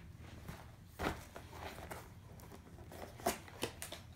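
Cardboard diamond-painting kit box being handled and opened: a knock about a second in, then a few quick clicks and rustles near the end.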